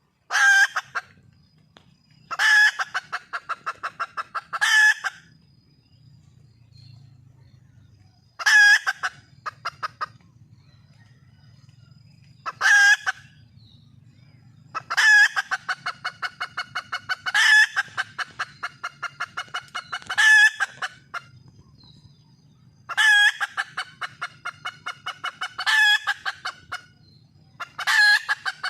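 Red junglefowl hen calling over and over. Each call is a loud note followed by a quick run of short clucks that fades away, repeated every two to four seconds: the hen's call for a mate that draws in males.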